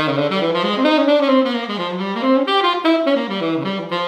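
Ishimori WoodStone "New Vintage" tenor saxophone playing a short melodic phrase, the notes moving up and down without a break and dying away near the end.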